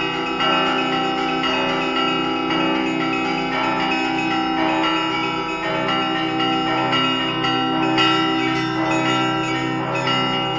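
Russian Orthodox church bells rung together: several small bells struck in quick, overlapping patterns over the steady ringing of the larger, lower bells.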